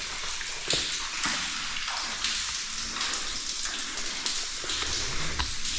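Water from a cave waterfall splashing and trickling in a steady hiss, with a few short knocks scattered through.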